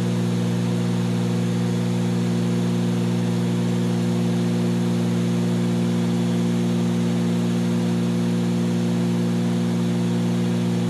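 Cessna 310Q's twin piston engines and propellers droning steadily in flight, a constant low hum with a hiss over it.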